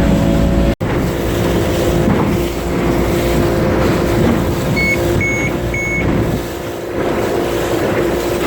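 An engine running steadily, with a sudden break a little under a second in. About five seconds in come three short, high electronic beeps.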